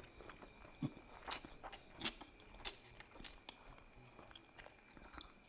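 Close-up eating sounds: irregular soft chewing, with short mouth clicks and crunches a few times a second, over a faint steady high whine.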